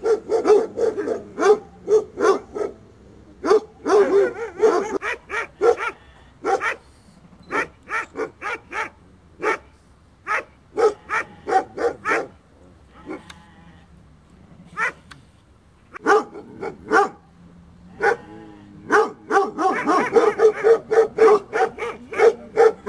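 Sage Mazandarani, Iranian shepherd dogs, barking in runs of quick barks with short gaps. The barks crowd over one another about four seconds in and again near the end.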